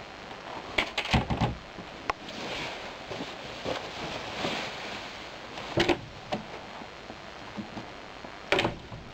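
A person moving about a small room: scattered knocks and clicks, with a stretch of clothing rustle in the middle as a coat is pulled on, and door handling near glass-paned French doors.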